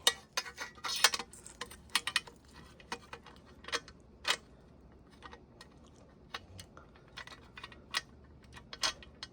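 Irregular light clicks and taps of small hard parts being handled, a few to several a second, with a few sharper knocks among them.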